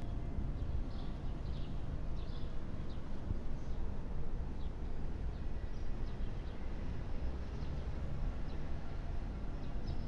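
Outdoor city background: a steady low rumble with small birds chirping, the chirps quick and repeated in the first few seconds and scattered after that.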